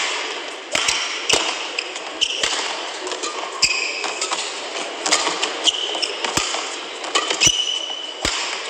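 Badminton rally: sharp racket strikes on the shuttlecock at irregular intervals, with short high squeaks of shoes on the court mat, over the murmur of an arena crowd.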